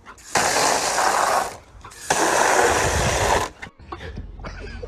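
Garden hose nozzle spraying water in two loud hissing bursts of about a second each, each starting and stopping sharply. Quieter background noise follows near the end.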